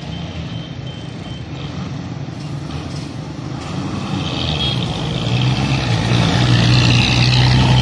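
A heavy vehicle's sound being shown off, with a steady low tone and a bright upper hum that swell in about halfway through and are held, growing louder.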